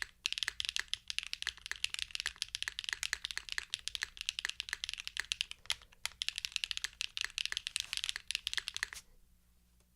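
Typing on a Mode Encore custom mechanical keyboard with Keygeek Y1X switches, an aluminium plate and GMK keycaps: quick, continuous keystrokes that stop about nine seconds in.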